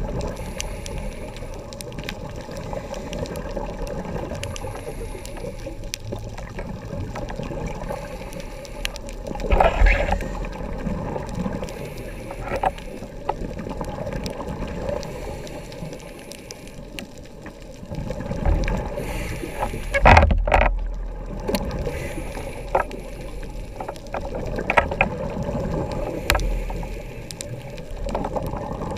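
Underwater sound from a scuba dive: a diver's regulator breathing and exhaled bubbles, swelling loudest about ten and twenty seconds in, with scattered faint clicks.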